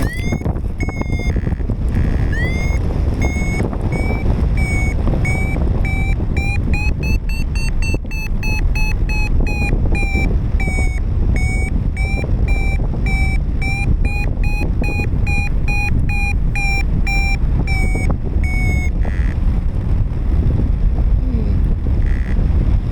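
Paragliding variometer beeping its climb tone, repeated short beeps whose pitch rises and falls with the strength of the lift; the beeping stops about 19 seconds in. Strong wind rumbles on the microphone throughout.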